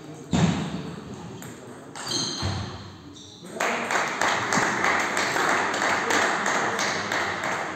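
Table-tennis ball bouncing with a sharp knock about half a second in and a few short pings a couple of seconds later. Then about four seconds of spectators clapping, with voices, in a large sports hall.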